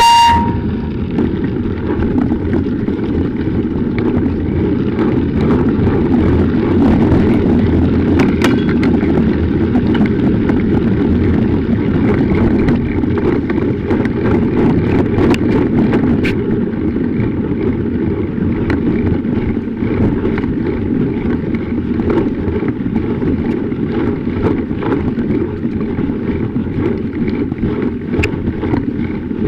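Wind rushing over the microphone of a bike-mounted action camera while riding a mountain bike, with the tyres rolling over snow and scattered clicks and rattles from the bike.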